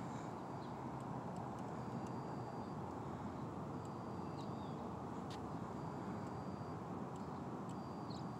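Steady outdoor background noise with faint, short high chirps about every two seconds; the parked helicopter's engine and rotor are not running.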